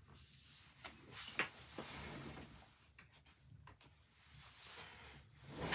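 Faint rustling and scraping of paper card being pressed flat by hand and slid across a cutting mat, with a sharper tap about a second and a half in.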